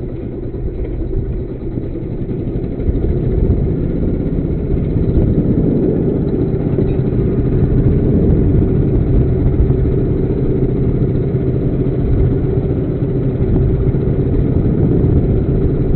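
Fishing boat's engine running steadily, a low drone that gets louder about three seconds in.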